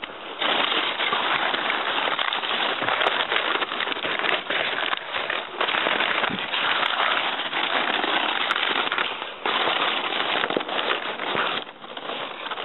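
Loud, continuous crackling and rustling of rotted corrugated cardboard and plastic sheeting rubbing and scraping against the microphone as it is pushed through a heap of dumped packaging. It starts about half a second in, breaks briefly near the end, and eases off shortly before the end.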